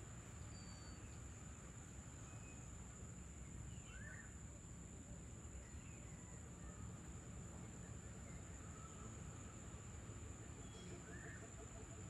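Faint evening nature ambience: a few short bird chirps and whistles, several seconds apart, over a steady high-pitched insect drone and a low background rumble.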